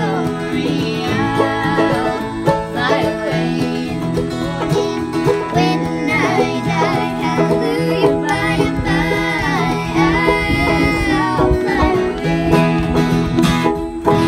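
Bluegrass song: voices singing in harmony over fiddle and plucked acoustic strings.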